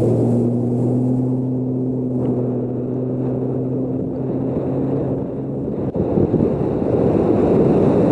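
Bass boat's outboard motor running steadily as the boat travels over the water, with a rushing wash of wind and water. About six seconds in the engine's hum drops out, leaving only the loud rush of wind and water.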